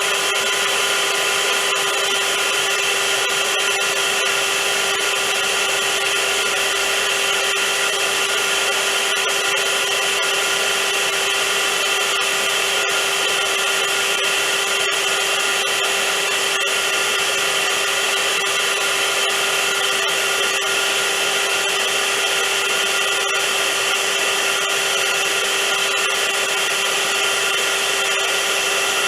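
Vacuum cleaner motor running steadily, a constant hum with several high whining tones over a rushing hiss, used as white noise for soothing a colicky baby.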